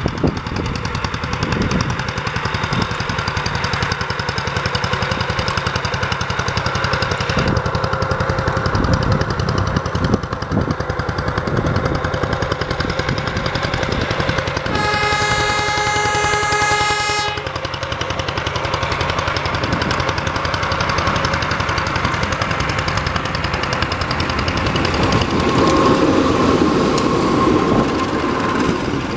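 CC 201 diesel-electric locomotive (GE U18C type) running under power as it pulls its train away. About fifteen seconds in, it gives one long single-note horn blast lasting about two and a half seconds, the semboyan 35 departure whistle. Near the end the engine grows louder as the locomotive passes close.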